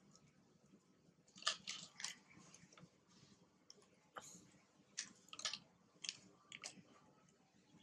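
Macaques chewing and biting food: a scatter of short, sharp crunches and clicks, a quick cluster about a second and a half in and more spread through the second half, over near silence.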